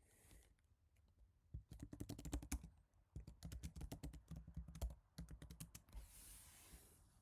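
Typing on a Happy Hacking Keyboard Type-S with silenced Topre switches: two quick runs of keystrokes with a short break between them, then a soft hiss near the end.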